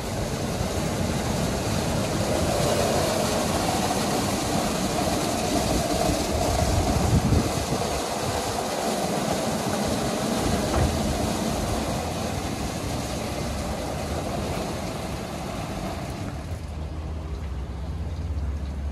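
WashTec EasyWash rollover car wash running: the gantry moves along its rails while the foam brushes spin and water sprays onto the car, giving a steady wash of noise over a low rumble. Near the end the hiss drops away and a steady low hum is left.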